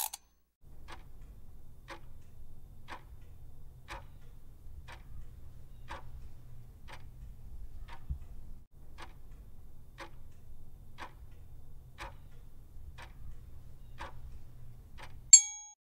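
Countdown-timer clock ticking, one tick a second, over a faint low rumble. Near the end a bright chime rings out as the time runs out.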